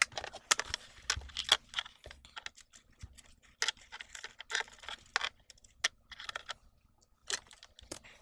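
Irregular clicks, taps and rustles of small hard objects being handled and set down, a few loud sharp clicks among them, over a faint steady hum.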